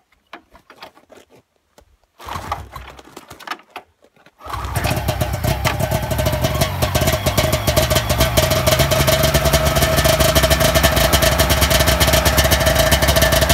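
Ski-Doo snowmobile engine being pull-started cold on full choke: a brief cranking rumble about two seconds in, then it catches at about four and a half seconds and keeps running steadily, loud, with a fast even firing pulse.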